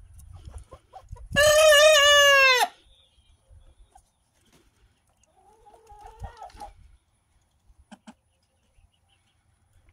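A young rooster's first crow: one loud, short, single-note call of about a second and a half that drops in pitch at the end, rather than a full cock-a-doodle-doo. A few seconds later hens give a run of softer, short calls.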